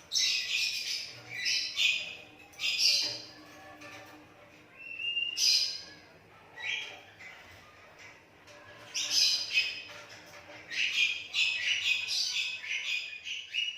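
A hand-fed Asian pied starling (jalak suren) giving harsh, raspy squawking calls in repeated short bursts, with brief pauses between clusters.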